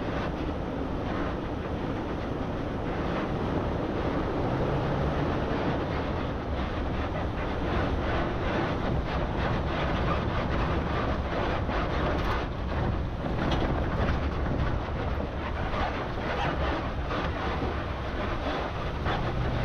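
Off-road vehicle driving over a rough desert dirt trail: steady engine and tyre noise with many short rattles and knocks from the bumpy ground, and wind on the microphone.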